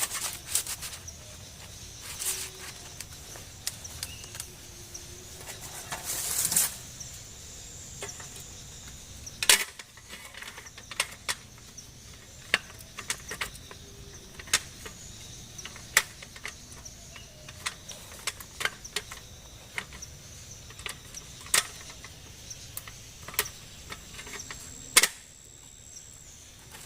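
Irregular sharp clicks and knocks of camping gear being handled, over a steady faint high-pitched hum; a short rustling burst comes about six seconds in.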